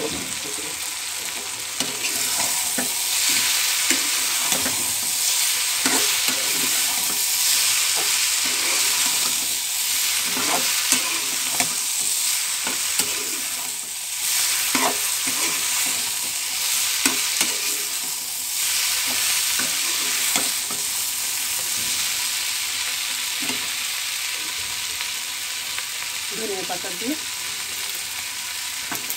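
Flat beans (shim) frying in a small karai with a steady sizzle, stirred with a metal spatula that clicks and scrapes against the pan now and then.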